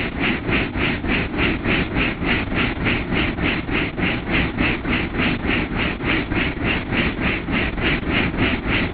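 Helicopter in flight heard from inside the cabin: a steady rhythmic rotor beat of about four pulses a second over a dense engine and transmission rumble.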